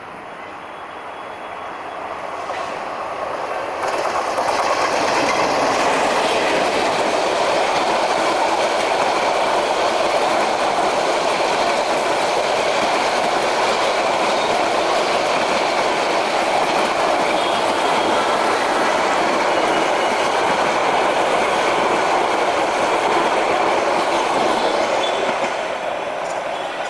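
Meter-gauge intercity train passing close by, hauled by an EMD GT18LA-2 diesel-electric locomotive. The sound builds over the first few seconds as the locomotive arrives, then a long, loud, steady run of coaches rolling past. It fades near the end as the last coaches go by.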